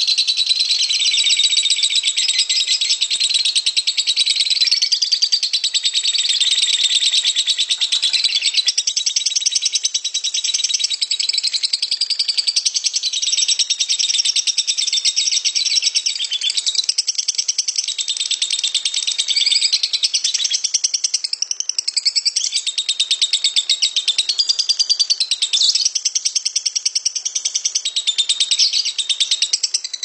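Lovebird singing a long, harsh 'ngekek' chatter: an unbroken run of rapid, high, shrill chirps.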